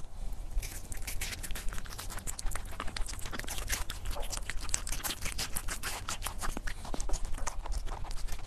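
A small pet chewing pieces of watermelon fed from a fork: a dense, irregular run of crisp, wet crunching clicks.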